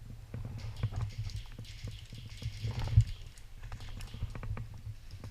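Footsteps and gear knocking against a body-worn camera as a player moves, with a steady low rumble and many short clicks and thuds. The loudest knock comes about three seconds in.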